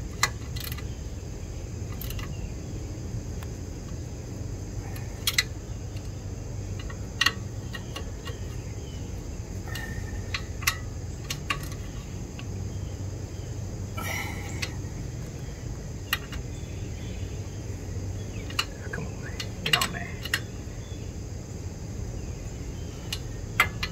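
Socket ratchet and metal tools clicking and clinking in short, irregular strikes as the nuts holding the rear axle are tightened by hand, over a steady low hum.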